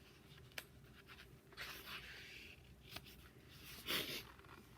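Paper rustling as the pages of a picture book are handled and turned, with a couple of light clicks. The loudest rustle comes about four seconds in.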